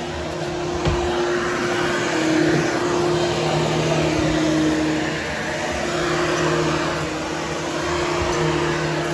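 Hoover Hushtone vacuum cleaner running steadily while grooming a berber carpet. Its motor hum dips and rises slightly in pitch a few times as the load changes.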